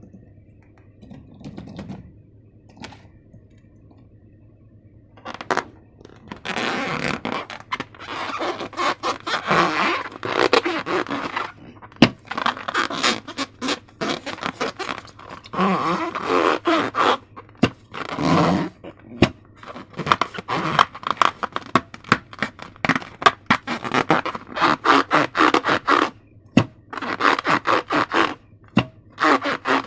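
Irregular scraping and rustling of hands working balloons and slime-making materials, starting about five seconds in after a near-quiet opening.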